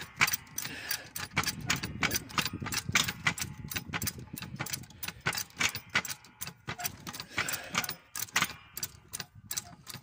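Trolley jack being pumped up under a spare-wheel cradle: a quick, uneven run of metallic clicks and ticks, several a second.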